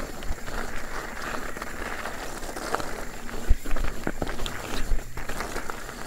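Steel hardtail mountain bike rolling along rocky dirt singletrack: the tyres hiss steadily over dirt and leaf litter, with a few sharp knocks in the second half as it hits rocks.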